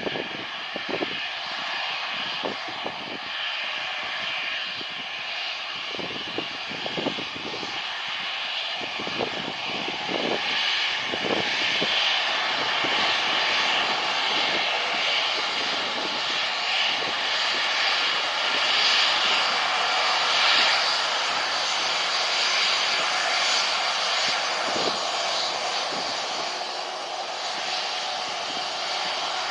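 Jet airliner engines running at high power: a steady whine and rush that grows louder to a peak about two-thirds of the way through, then eases a little. In the first half, irregular gusts of strong wind buffet the microphone.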